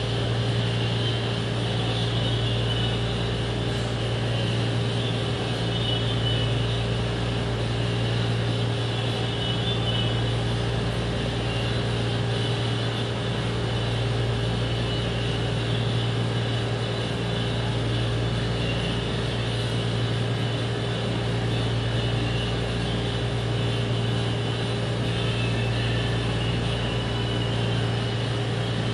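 Electric fan running with a steady hum: a low drone, a steady higher tone and an even hiss that hold unchanged throughout.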